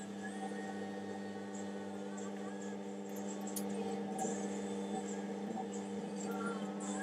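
Electric motor of a homemade pottery wheel running with a steady hum under the load of about 12 lbs of clay being centered, with a few faint clicks now and then.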